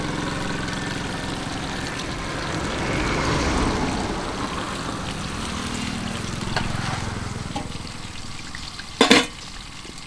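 Quail frying in hot oil, a steady sizzle that swells about three seconds in and dies down toward the end. A short, sharp clatter about nine seconds in is the loudest sound.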